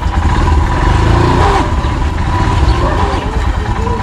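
Motorcycle engine running at low revs, a steady low rumble.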